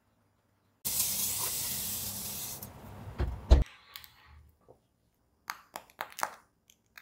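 A loud spraying hiss for about two seconds, fading out with two heavy thuds, the second the loudest sound here. Then, from about five and a half seconds, a run of short, crisp taps and crackles from fingers on the crust of the baked bloomer loaf.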